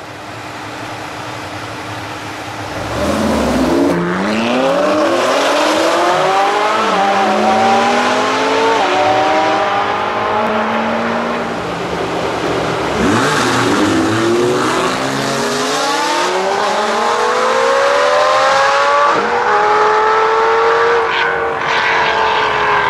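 Two supercars accelerating hard side by side, their engines climbing in pitch through several upshifts, each shift a brief dip before the next climb. There are two such runs, one starting about three seconds in and another about thirteen seconds in; the second pair is Lamborghini Gallardo V10s.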